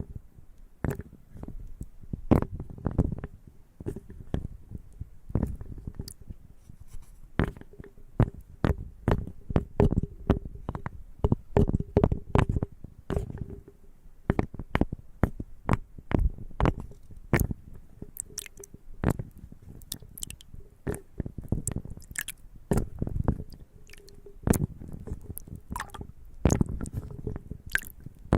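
Close-miked chewing and crunching of nuts and coconut pieces: sharp, irregular crunches, often several a second, in runs with short lulls between bites.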